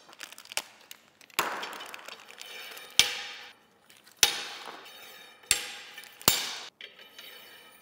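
Wrought iron square spindles clanking as they are shoved into place in a cedar rail board: five sharp metallic knocks about a second apart, each ringing briefly.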